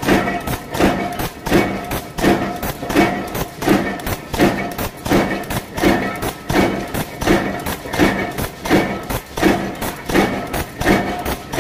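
Power press with a pneumatic strip feeder running in continuous cycle, punching steel strip. It gives an even train of thuds, about three strokes every two seconds, over a steady machine hum.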